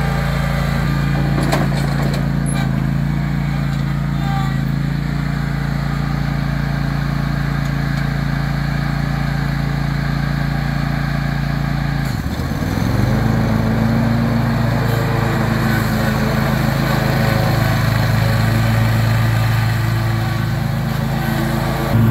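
Zero-turn riding mower's 24.5 hp 708cc V-twin engine running steadily, with a couple of sharp knocks a second or two in. About twelve seconds in the engine note dips briefly, then settles at a higher, louder pitch.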